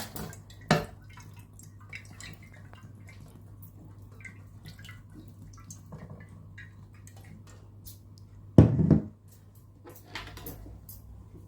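Cooking oil heating in a pot, giving scattered small crackles and pops over a steady low hum. A sharp knock comes near the start and a louder thud about nine seconds in.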